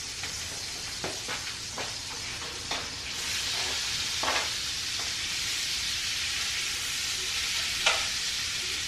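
Cubed ribeye steak going into a pan of hot butter. The frying sizzle swells to a steady hiss about three seconds in as the meat hits the pan. A few short clinks and knocks come from the plate, utensils and pan.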